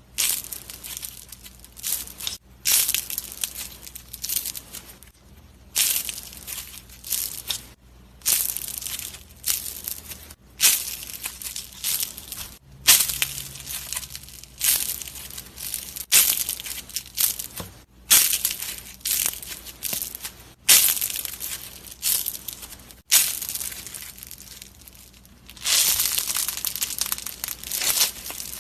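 Slime being pressed and squeezed by hand, giving repeated crackling, crunching squishes that start sharply and fade, one every second or two.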